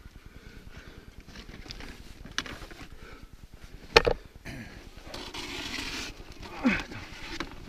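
Handling noise from skis, rope and climbing gear scraping against snow close to a helmet camera, with one sharp knock about four seconds in, followed by about a second of hissing scrape.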